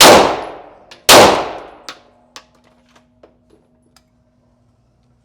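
Two pistol shots about a second apart, each with a long echoing decay in an indoor range, followed by several light clinks and ticks.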